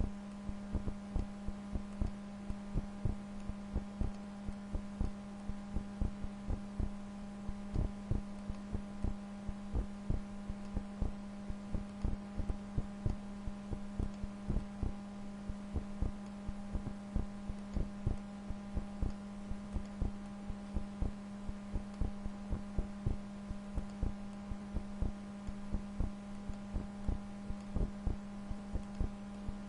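Computer mouse clicking over and over at an irregular pace, several clicks a second, as points are placed in embroidery digitizing software, over a steady low electrical hum.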